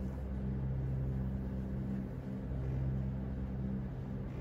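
Low, steady droning tone of a few held low notes, with a couple of brief dips: an ambient drone under the performance.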